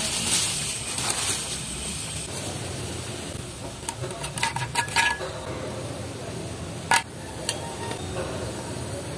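A stainless steel insulated water bottle's screw lid being handled and unscrewed: a cluster of small clicks and clinks about four to five seconds in, and the loudest single click about seven seconds in as the lid comes off the steel neck. Bubble wrap crinkles at the start.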